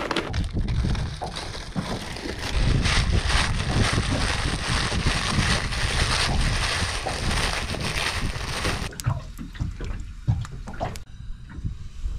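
Plastic bag crinkling as corn tortilla strips are crushed into crumbs inside it by hand, a dense crackling crunch. It stops about three quarters of the way through, leaving a few soft knocks.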